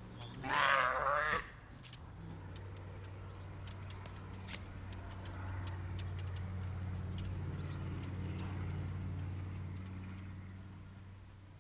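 A roped calf bawls once, a wavering cry about a second long, as it is flanked to the ground. After that only a low steady hum with faint scattered clicks remains.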